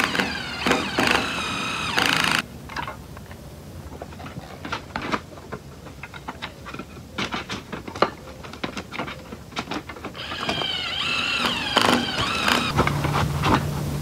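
Cordless drill boring holes through a steel R-panel roofing sheet, its motor whining with a wavering pitch in two spells, one at the start and one from about ten seconds in. Between them come light clicks and taps of the bit and the metal panel being handled.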